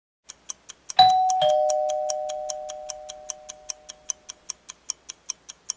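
Two-note doorbell chime, ding-dong: a high note struck about a second in, then a lower note, both ringing out and fading over about three seconds. Under it a countdown timer ticks steadily, about four to five ticks a second.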